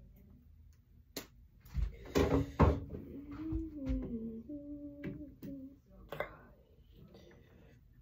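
Handling noise as cables and objects are moved: a click about a second in and a loud clatter of knocks around two seconds in. This is followed by a person humming a few notes for about three seconds, then a few more scattered clicks.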